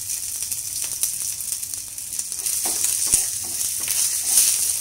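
Chopped shallots sizzling in hot oil in an iron kadai alongside dried red chillies and curry leaves, stirred with a wooden spatula, with many small clicks and scrapes over the hiss. This is the seasoning being fried until the shallots turn red.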